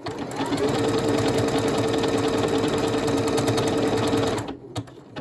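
Necchi NM2000 computerised sewing machine running at a steady fast pace as it stitches a lowercase letter 'a' in its lettering mode, with a steady hum under the rapid needle rhythm. It stops by itself a little over four seconds in as the letter is finished, followed by a few light clicks.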